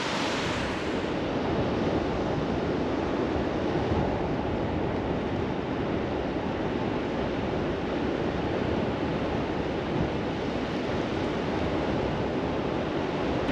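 Ocean surf breaking and washing up a sandy beach, a steady rush, with wind on the microphone.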